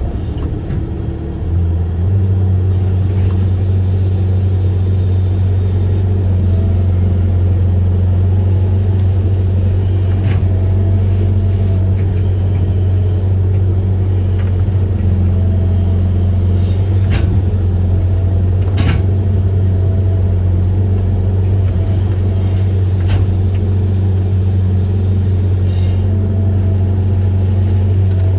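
Amphibious excavator's diesel engine running steadily with a deep drone that comes up about a second and a half in, with a few short knocks scattered through it.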